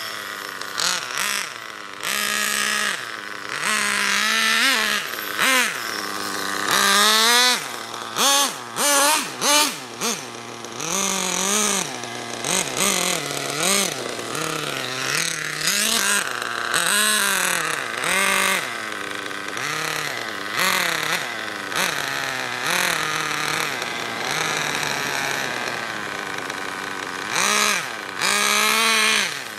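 Nitro engine of an OFNA Ultra LX Comp RC buggy revving up and down over and over as the car is driven, its pitch rising and falling with the throttle. About a quarter of the way in comes a quick string of short, loud throttle blips.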